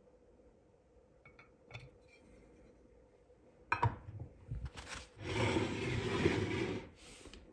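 Packaging being handled during the unboxing of a diecast model plane: a few light clicks, a sharp knock a little past the middle, then about two seconds of rustling or scraping near the end.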